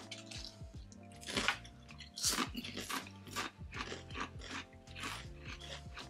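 A person chewing and crunching stackable salt and vinegar potato crisps, with many irregular crunches in quick succession. Quiet background music plays underneath.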